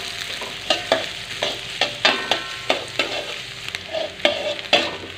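Sliced onion sautéing in a little oil in a metal wok, sizzling, while a metal ladle scrapes and clinks against the wok about two or three times a second, each stroke ringing briefly.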